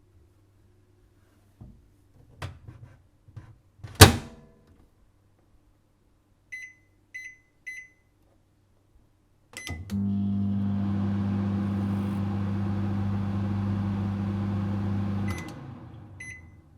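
Microwave oven: a few clicks and one loud clunk, three short keypad beeps, then a click and the oven runs with a steady low hum for about five seconds. It stops abruptly near the end and winds down, followed by two short beeps.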